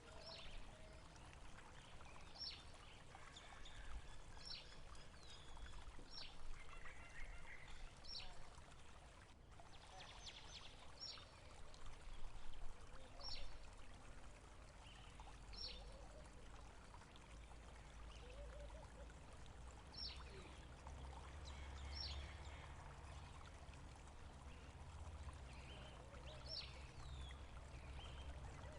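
Faint running, trickling water with a small bird repeatedly giving short, high, falling chirps every second or two; a low rumble comes in during the second half.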